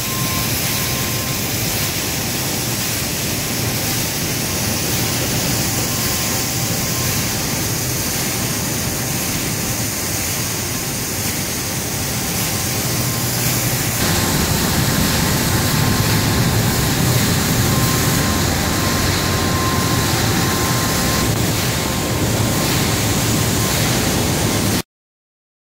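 Steady industrial machinery noise of a pasta production line: a dense rushing of fans and motors with a faint high whine. It gets somewhat louder about halfway through and cuts off suddenly near the end.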